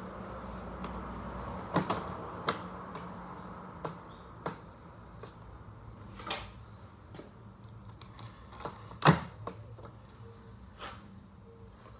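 Hand work on a Samsung French-door refrigerator's door handle and its fittings: scattered clicks and knocks, the loudest about nine seconds in, over a low hum that fades in the first couple of seconds.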